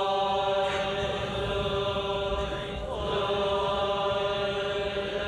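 Buddhist chanting: voices holding one steady, droning tone.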